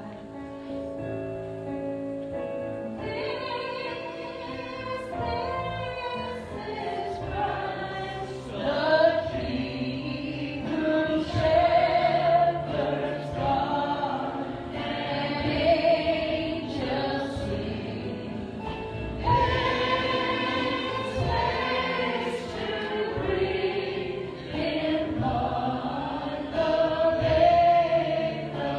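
Worship song: electronic keyboard playing held chords, with singing voices coming in about three seconds in and carrying the melody over the keyboard.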